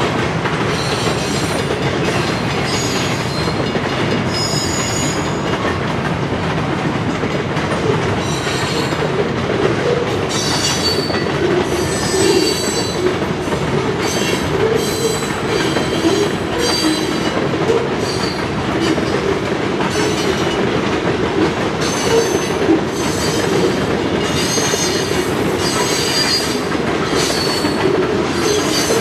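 Freight train cars rolling past on the rails: a steady rumble of wheels on track with high wheel squeals that come and go throughout.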